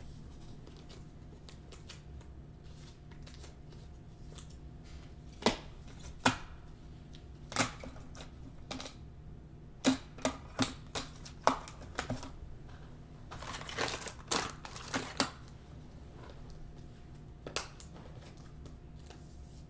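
Irregular sharp clicks and taps from trading cards and their packaging being handled on a table, with a short burst of denser rustling and clicking about two-thirds of the way through.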